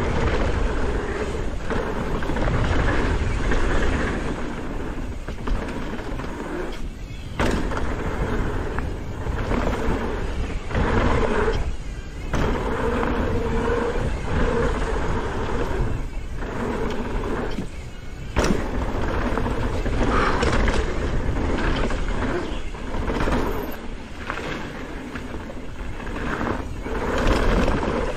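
Mountain bike riding down a rough downhill trail: steady rumbling tyre and trail noise with rattles and knocks, briefly dropping out a few times.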